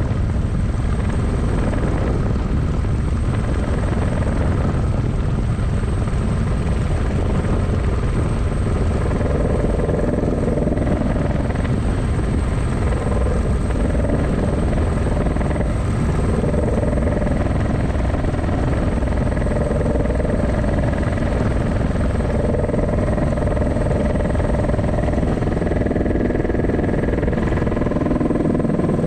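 Single-seat turbine-powered experimental helicopter in flight, heard from inside its cockpit: a steady, dense rotor rumble with steady engine tones over it and a thin, high whine.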